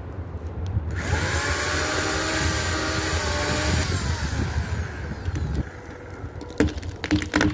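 Chainsaw revving up to full throttle about a second in, running at a high steady whine for about three seconds, then winding back down. Near the end come several sharp cracks, over a low engine hum.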